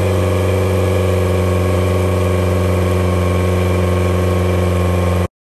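Honda BF75/BF90 four-cylinder four-stroke outboard engine running at a steady speed during a leak test of the newly resealed head water jacket cover. It cuts off suddenly near the end.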